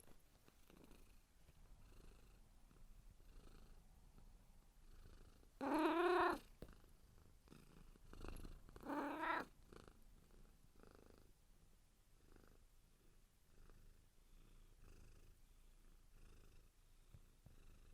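Domestic cat purring quietly and rhythmically, with two loud meows about six and nine seconds in.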